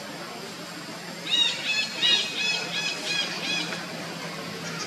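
An animal calling: a run of about seven short, high, arching calls, about three a second, starting a little over a second in and stopping near the end, over a steady low hum.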